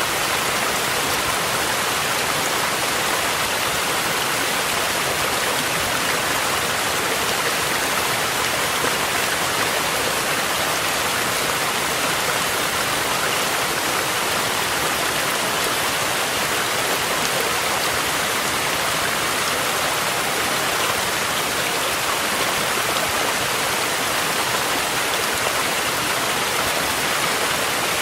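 Mountain stream flowing, mixed with steady rain: an even, unbroken rush of water.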